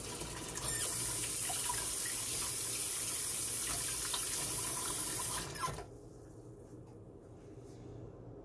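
Kitchen sink tap running as hands are washed under it, a steady rush of water for about five seconds, then turned off.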